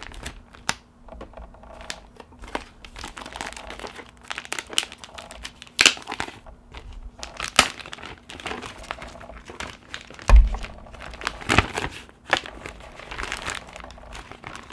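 Thin protective plastic film being picked at and peeled off a new drone remote controller, crinkling and crackling in irregular bursts because it is hard to get off. A low thump about ten seconds in, then a sharp knock, as the controller is handled.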